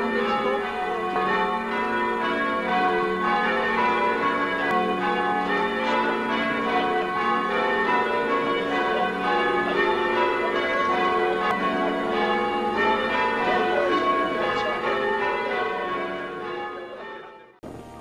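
Church bells ringing, many overlapping strikes in a continuous peal, fading out near the end.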